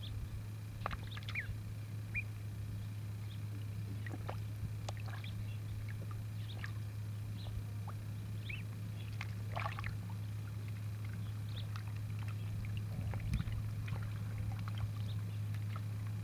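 Ducklings dabbling and paddling in shallow pond water: small splashes and sloshing, with scattered short high peeps, over a steady low hum.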